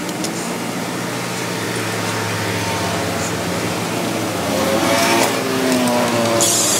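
Steady mechanical hum, then near the end a cordless impact wrench runs briefly, tightening the top nut of a front strut onto its new top mount.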